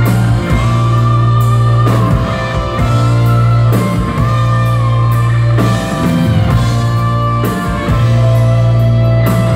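A live rock band is playing. An electric guitar holds long, sustained lead notes with small bends over a deep held bass note that changes about every two seconds. The drum kit plays along with cymbal strikes.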